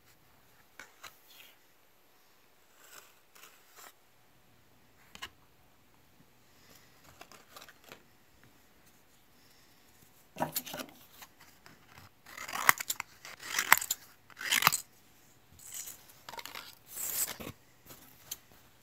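Kitchen scissors cutting through Kevlar cloth: a run of about seven short snips in the second half, after a few light clicks of handling.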